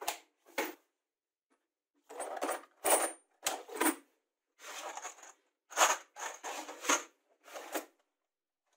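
Metal nuts and screws rattling inside plastic milk-bottle bins as the bins are shaken and handled, in a string of short rattles with brief silences between them.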